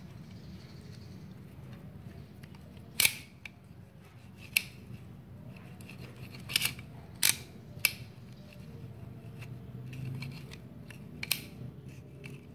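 Multipro 10-inch water pump pliers being worked by hand: six or seven sharp metal clicks, irregularly spaced, as the jaws are opened and closed and the slip joint is shifted.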